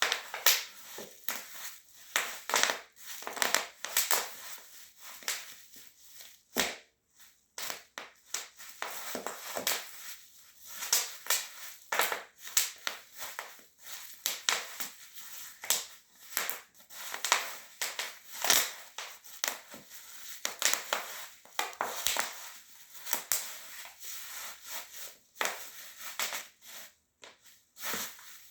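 Bubble wrap being popped under high-heeled shoes: many sharp pops coming at an irregular pace, sometimes in quick clusters.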